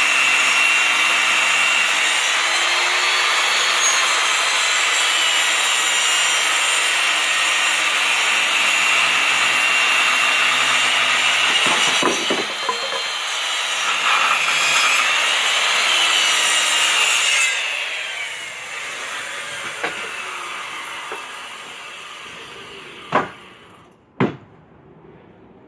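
Makita 7-1/4-inch circular saw ripping lengthwise through a 2-by-10 cedar board, the motor running with a steady whine as the blade cuts. About seventeen seconds in the saw is let off and winds down. Near the end there are two sharp knocks as the cut-off piece of board falls.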